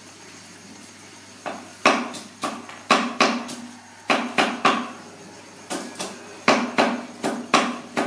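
A series of sharp knocks, about twenty, coming in irregular clusters of two to four and starting about a second and a half in.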